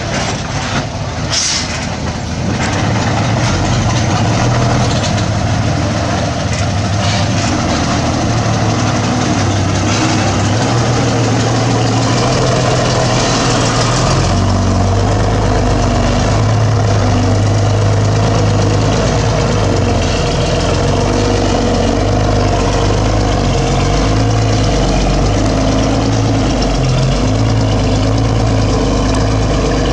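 Heavy diesel engine of earthmoving machinery running steadily, a low drone that grows heavier about halfway through as the machine works under load.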